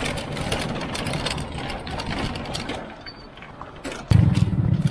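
A vehicle engine running: a noisy clatter at first, then a loud, steady low engine drone that cuts in suddenly about four seconds in.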